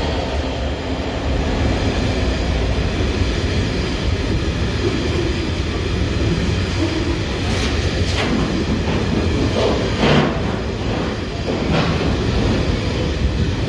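Freight train of covered hopper wagons rolling past at speed: a steady rumble of steel wheels on the rails, with several sharp clacks from the wheels in the second half.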